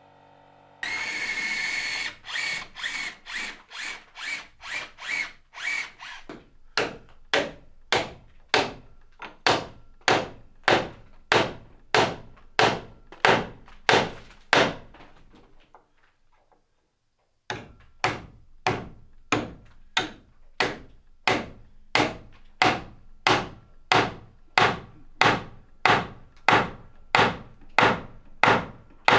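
A hammer repeatedly striking wooden pegs, driving them into the mortise-and-tenon joints of a timber roof A-frame. The blows are steady, a little under two a second, with a rushing noise under the first few seconds and a short break past the middle.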